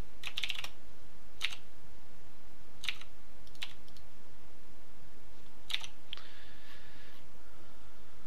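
Sparse computer keyboard keystrokes and mouse clicks: a quick cluster of keystrokes near the start, then single clicks about a second or more apart.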